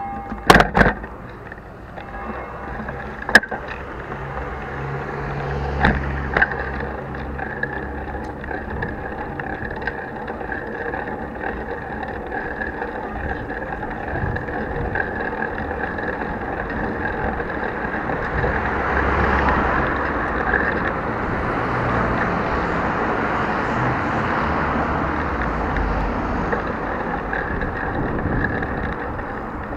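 Bicycle ride heard through an action camera fixed bare to the handlebars, without its protective housing: a steady rumble and rattle of the wheels rolling over paving and road. There are a few sharp knocks in the first seconds, and the noise grows louder in the second half.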